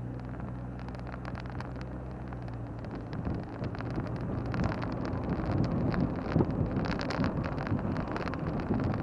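Car engine idling steadily, then from about three seconds in the sound grows louder and rougher as the car gets under way.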